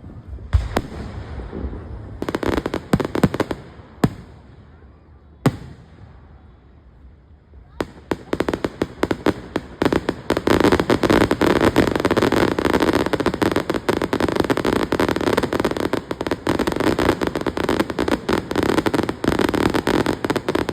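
Fireworks going off: a few separate loud bangs, then, from about eight seconds in, a long unbroken run of rapid pops, as from a string of firecrackers.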